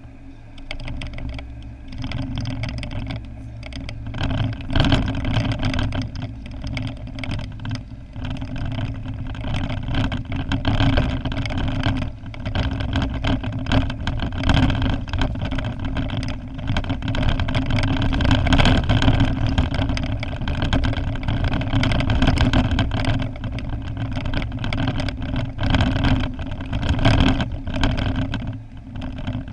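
Car driving slowly along a town street, its engine and tyre noise heard from inside the cabin, with frequent small clicks and knocks.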